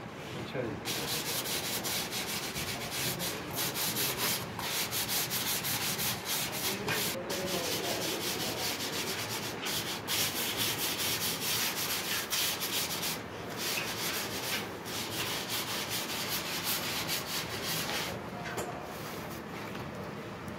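Hand sanding of a dry, unfired ceramic wash basin: quick, continuous rubbing strokes over the clay surface, easing off near the end.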